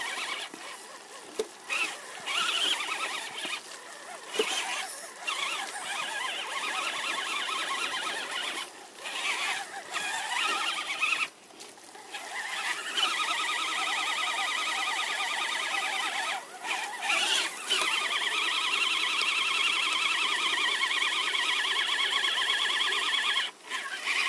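Electric drive motors and geartrains of two RC trucks, a GMade Komodo and an HSP Pangolin, whining under load as they pull against each other on a chain in mud. The whine cuts out and comes back several times as throttle is let off and reapplied, and holds steady through the last third.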